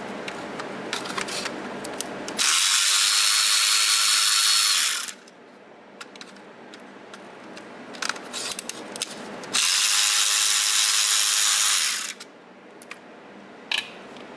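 Cordless electric ratchet running in two steady bursts of about two and a half seconds each, undoing the fasteners that hold the engine wiring harness to the intake manifold, with light clicks of handling in between.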